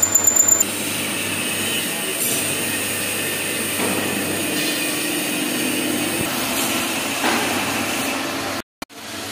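CNC lathe running while turning a steel shaft: a fast pulsing for the first moment, then steady machine running noise. The sound cuts out briefly near the end.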